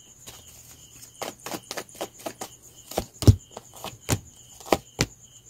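Tarot cards being handled and shuffled by hand, a run of light card clicks and flicks, with a few sharper taps in the second half as a card is laid down on the cloth-covered table.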